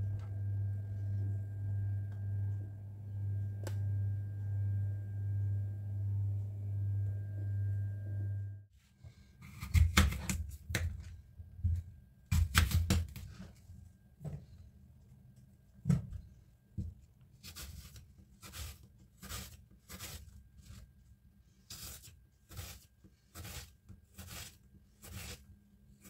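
A steady low hum that swells and fades about once a second, cut off suddenly about a third of the way in. Then a small kitchen knife cuts through an apple onto a plastic cutting board: a few louder knocks, then short regular cuts, a little under two a second.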